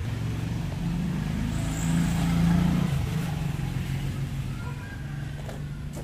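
A motor vehicle's engine passing by, growing louder to a peak about two and a half seconds in, then fading away.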